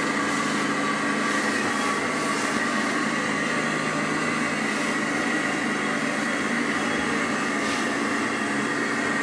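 A fan running: a steady whir, constant hum tones over rushing air noise, unchanging throughout.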